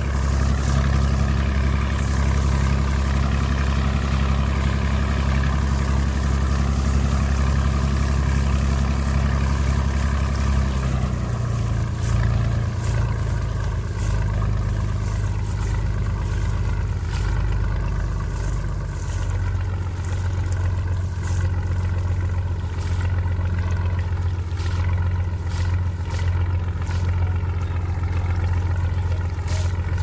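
Small diesel boat engine running steadily with a low, even note that shifts in pitch about ten seconds in and again near twenty seconds. Faint short ticks come through in the second half.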